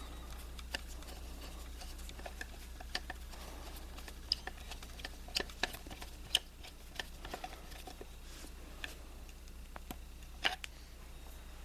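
Irregular light clicks and ticks of a screwdriver and small metal parts as the Phillips screw is driven back into the distributor rotor button, over a low steady hum.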